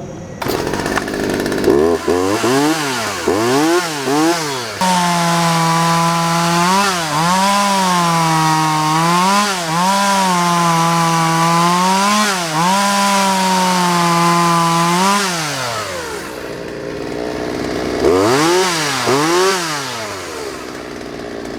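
A 42cc two-stroke chainsaw starts up and is revved in quick blips. It is held at full throttle for about ten seconds with brief dips, then drops to idle. Two more quick revs follow, and it settles back to idle. It starts and idles with no trouble.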